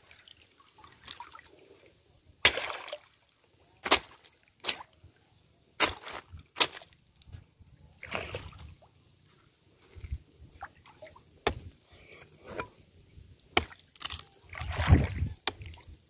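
A bolo knife chopping leaflets off a coconut frond's midrib: about ten sharp, irregularly spaced chops, with a longer, heavier knock near the end.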